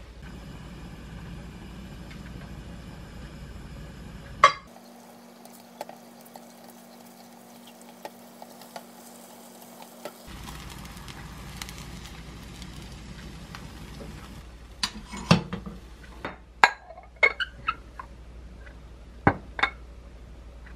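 Kitchen cooking sounds: a sharp clack about four and a half seconds in and a low steady hum for several seconds. Near the end comes a quick string of clinks and knocks of a ceramic bowl and plate as fried rice is turned out onto the plate.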